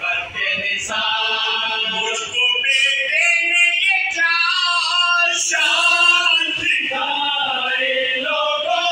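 A group of men singing a marsiya, a Shia elegy, together into a microphone with no instruments, in long held notes that glide up and down.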